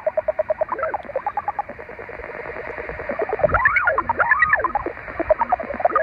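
Pulsed knocking radio signal, about ten knocks a second, coming through the speaker of a Yaesu FT-817 in upper sideband near 13.560 MHz. Its pitch slides up and down in arcs about halfway through as the tuning dial is turned. The operator takes it for interference from the car park.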